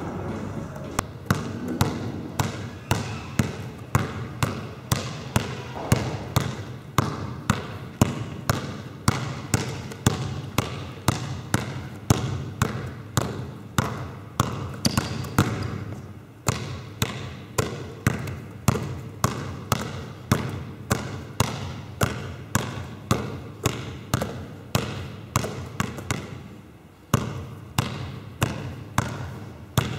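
Basketballs dribbled hard on a sports-hall floor: a steady run of sharp bounces, about two a second, mostly from two balls dribbled at once, with brief lulls partway through.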